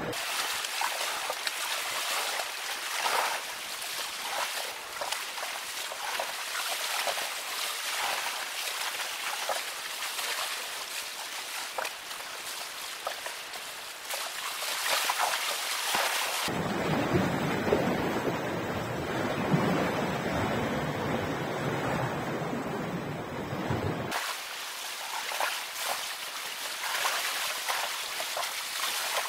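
Sea waves washing and splashing against shoreline rocks, with wind buffeting the microphone. The sound changes abruptly about halfway through, turning duller and deeper, then returns to its brighter wash about three quarters through.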